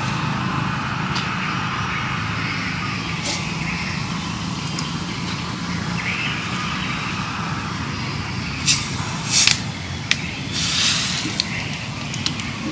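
Steady low outdoor rumble, broken near the end by a few sharp clicks and then a short fizzing hiss as the cap of a plastic bottle of carbonated cola is twisted open.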